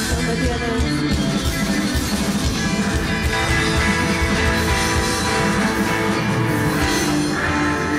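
Rock band playing live: electric guitar and drum kit in a loud instrumental passage without vocals.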